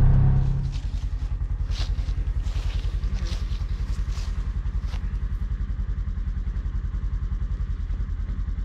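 A vehicle engine idling with a steady low throb, louder for the first half second or so. Rustling and crunching in the grass comes and goes between about one and five seconds in.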